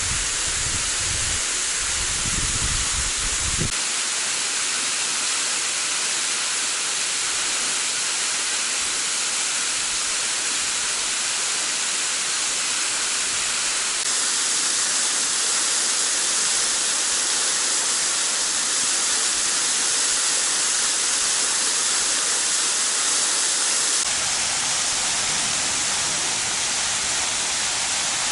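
Waterfall: a steady, dense rush of falling water, growing a little louder and brighter about halfway through. A low rumble sits under it for the first few seconds.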